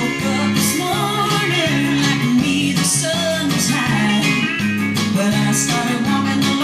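Music.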